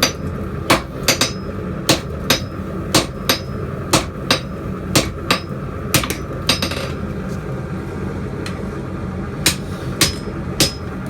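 Hand hammer blows on hot steel over an anvil while forging: sharp, ringing strikes about two a second, then a pause of about three seconds, and three more strikes near the end.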